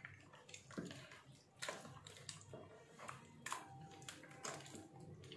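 Faint wet squelching as a hand kneads raw chicken pieces in a thick yogurt marinade in a plastic bowl, in soft irregular smacks.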